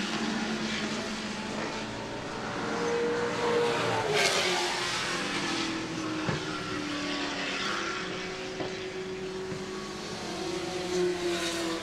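Engines of historic single-seater racing cars running at an easy parade-lap pace, several engine notes heard at once. One engine note drops in pitch about four seconds in.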